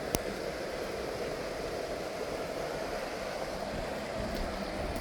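Steady rushing of a flowing creek. A single sharp click sounds just after the start.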